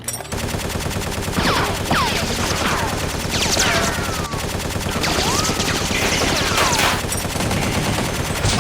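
Sustained rapid automatic gunfire, a dense battle sound effect, with several whining glides that mostly fall in pitch over it.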